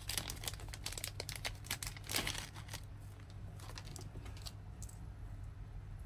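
A clear plastic bag and bubble wrap crinkling and rustling as they are handled, a dense run of crackles for about three seconds that then thins out to scattered crinkles.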